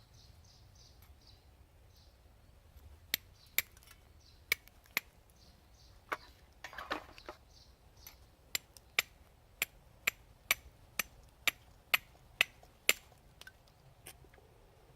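Steel striker hitting a flint: sharp clinks, a few scattered at first, then a steady run of about two a second, with a short scraping rustle midway. A bird chirps briefly near the start.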